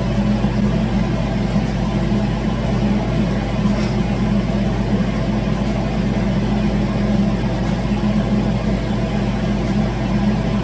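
A steady, unchanging mechanical hum.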